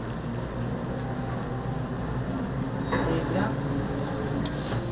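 Toast fillings frying on a griddle, a steady sizzle, with two sharp clicks, about three seconds in and near the end.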